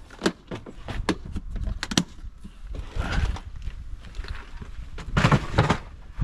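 Small hardware and containers being handled in a van's storage: a run of sharp clicks and knocks with rustling between them, and a louder clattering rustle about five seconds in.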